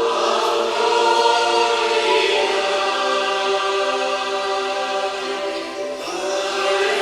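A choir singing a hymn in long, held notes.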